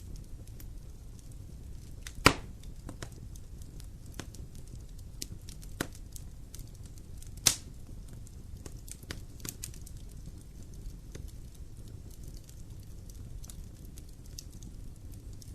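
Fire burning in a fireplace: a low steady rumble with scattered small crackles and two loud sharp pops, about two seconds in and about seven and a half seconds in.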